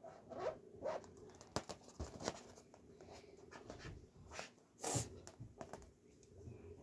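A latex balloon being handled and drawn on with a marker: faint rubbery squeaks and rubs with scattered small clicks, and a louder handling sound about five seconds in.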